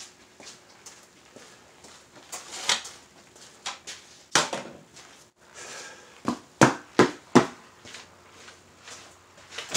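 Scattered knocks and clatter of a person moving about in a garage, with four sharp thuds in quick succession about six to seven and a half seconds in.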